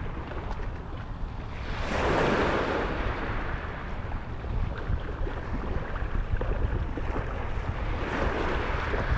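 Small waves breaking and washing up a pebble beach, swelling once about two seconds in and again near the end, with wind rumbling on the microphone.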